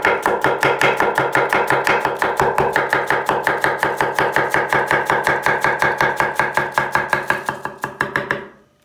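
Kitchen knife shredding cabbage on a wooden cutting board: fast, even chopping strokes that stop near the end.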